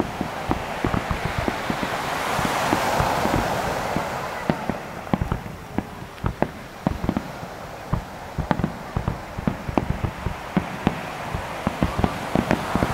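Wide starmine fireworks barrage: aerial shells bursting in quick succession, several bangs a second, over a hiss that swells a couple of seconds in and then eases.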